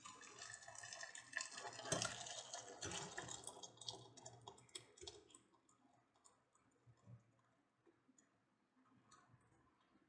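Rasam poured from a wide pan into a steel pot, a splashing pour for the first few seconds, then faint scattered clicks as the frothy liquid settles.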